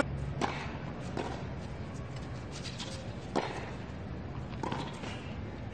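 Tennis rally: a ball struck back and forth with rackets, starting with a serve. There are a few sharp hits a second or more apart over a steady low stadium background.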